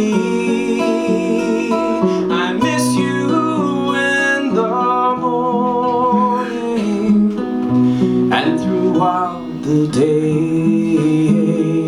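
Acoustic guitar strummed and picked under a man singing a slow folk song, his held notes wavering.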